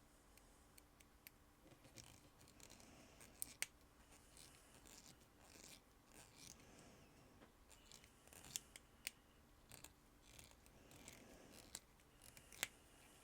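Faint scratchy scraping and small clicks of the back screw being turned into a vintage G.I. Joe figure's plastic body, with several sharper ticks scattered through.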